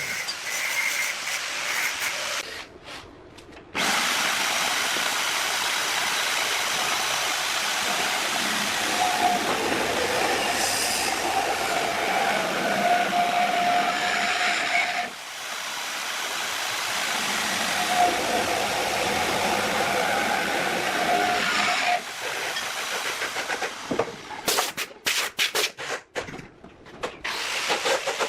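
Electric hand drill boring into steel: a steady cutting hiss with a squeal from the bit in two long spells. It stops briefly about three seconds in and again at about the halfway point, and near the end it runs in short start-stop bursts.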